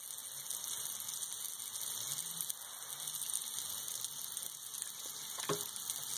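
Chicken-of-the-woods mushrooms frying in a pan: a steady sizzling hiss with fine crackles.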